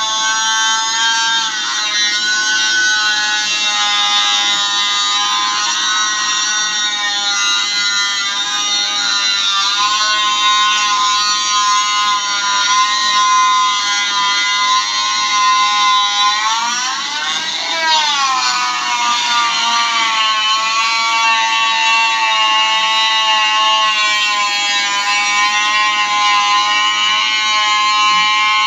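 Electric grinder whining steadily as it grinds and polishes a steel excavator slewing bearing. The pitch shifts a little as the load changes, with one quick rise and fall about two-thirds of the way through.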